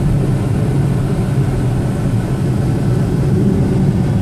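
Steady low rumble of a car's engine and road noise inside the cabin of a moving car.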